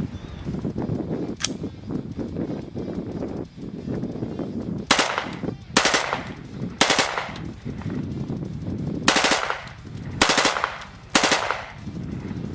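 Windham Weaponry AR-15 in .223 bump-fired from a homemade bump fire stock: six short bursts of rapid gunfire, starting about five seconds in and a second or so apart. The bump fire keeps breaking off into short bursts ("a lot of 3-round bursts") instead of emptying the magazine in one run.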